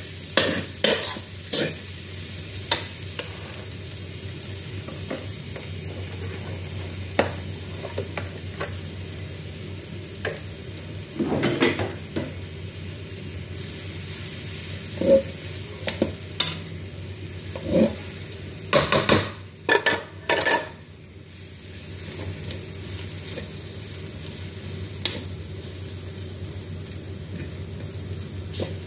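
Fried rice stir-frying in a large metal wok: a steady sizzle under the scraping and clicking of spatulas turning the rice against the pan. A cluster of louder knocks comes near the middle and another about two-thirds through.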